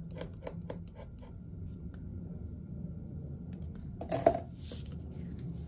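A scratch-off card being scratched with a thin tool: a few quick scratching strokes in the first second. Then a brief loud clatter about four seconds in, the loudest sound, over a low steady hum.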